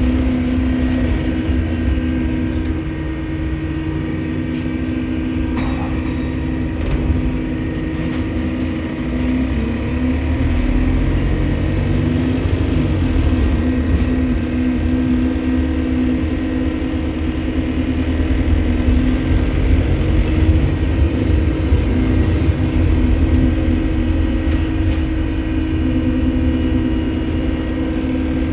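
Stagecoach London bus 36615's engine running under way, heard inside the bus: a steady low drone and rumble, with a faint high whistle that rises and falls twice. The title puts this strange noise down to a leaking turbo.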